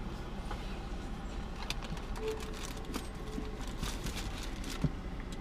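Steady low hum inside a parked car, with faint clicks and rustles of someone chewing a breakfast sandwich and handling its wrapper. A brief faint whine comes about two seconds in.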